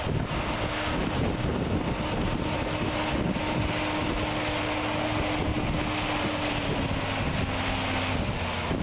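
Tractor engine running steadily under load while pulling a plow, its drone dipping slightly in pitch near the end. Wind buffets the microphone throughout.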